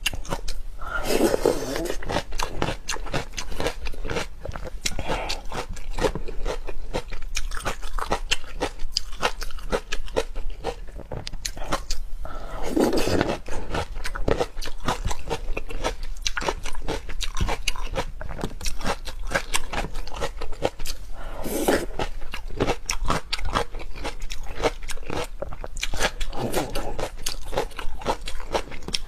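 Close-miked eating of raw rice-wine-marinated shrimp: steady crunching, chewing and mouth clicks, with three louder, longer sounds about a second in, near the middle and about two-thirds through.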